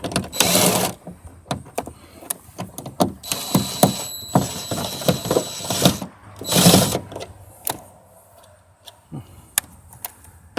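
Hand tools and metal hardware clicking, knocking and rattling as a hood hinge bolt is worked on, with a longer stretch of steady mechanical noise through the middle and a short louder burst later.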